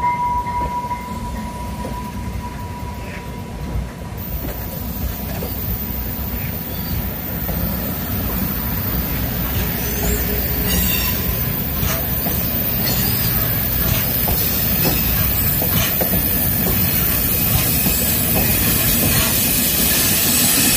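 Amtrak Cascades Talgo passenger cars rolling past at close range: a steady, dense rumble and clatter of wheels on rail that slowly grows louder toward the end as the locomotive nears. A thin high squeal at the start fades out about a second in.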